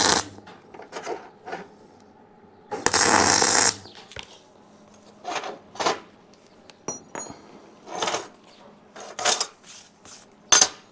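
MIG welder laying short tack welds on steel weld nuts: the crackling hiss of one tack cuts off at the very start, and a second tack crackles for just under a second about 3 s in. Then come scattered light metallic clinks and knocks of steel parts being handled on the steel table.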